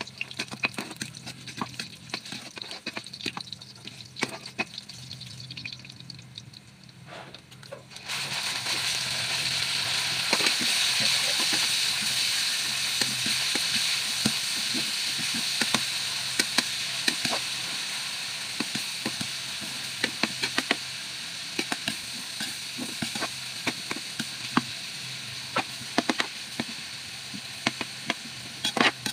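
Metal spatula scraping and clicking against a wok as garlic cooks in oil. About eight seconds in, a loud sizzle starts as sliced pork goes into the hot oil, then eases into a steady frying sizzle with the spatula stirring.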